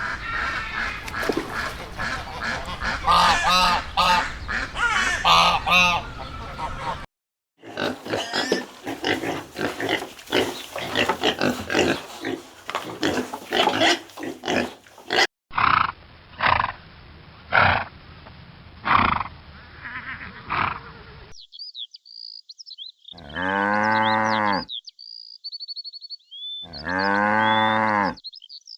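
A run of separate farm-animal recordings, one after another: dense grunting and calling animal sounds, then two long, low calls about four seconds apart, with small birds chirping in the background.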